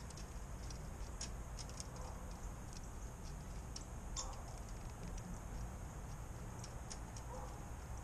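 Birds pecking seed at a feeder close to the microphone: irregular small, sharp clicks over a steady low outdoor rumble.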